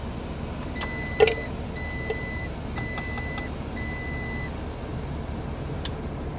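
A car's electronic warning chime beeps four times at an even pace, about once a second, over the steady low hum of the vehicle cabin. A single click comes about a second in.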